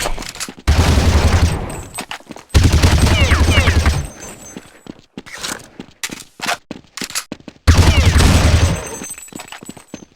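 Three loud, long farts, each lasting about a second, with smaller pops between them.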